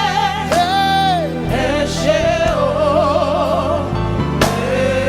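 Live gospel worship song: a lead voice sings long held notes with vibrato, one sliding down about a second in, over a band with steady bass notes.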